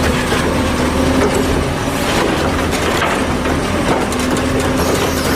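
Truck engine running steadily: a dense, loud noise over a constant low hum.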